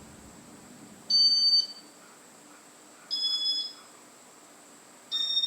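Three short electronic beeps about two seconds apart, each about half a second long and each at a slightly different pitch, from a Casablanca W32 wall control and fan confirming key presses as the fan is stepped up through its speeds.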